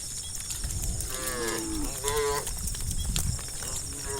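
Cows mooing: two short calls about a second and two seconds in, the first falling in pitch, with another starting near the end, over a steady low rumble.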